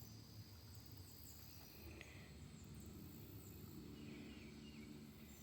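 Near silence: faint outdoor ambience with a low rumble and a few short, high, falling chirps from small birds.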